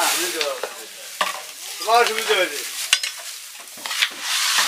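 Scraping and rustling of cooked tehari being scooped and packed, with a few sharp clicks and a voice calling out in the background about two seconds in.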